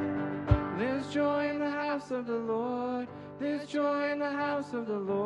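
Live worship band playing a song, with voices singing a melody over acoustic guitar, keyboard and upright bass; the singing comes in about a second in.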